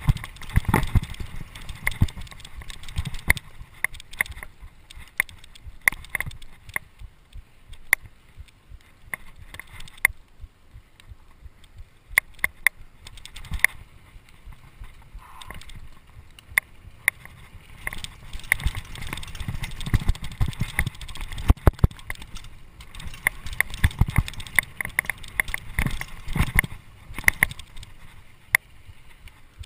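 Mountain bike clattering down a rough dirt trail: many irregular sharp clicks and knocks from the bike rattling over bumps, over a low rumble of tyres on dirt.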